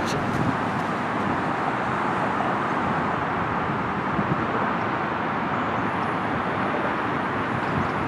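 Steady road traffic noise, an even rush of passing vehicles with no single event standing out.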